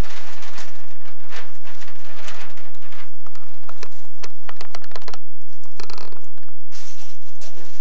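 Blanket rustling, with quick light clicks and rattles from a toy doll's pram being pulled about; a run of rapid clicks comes about halfway through.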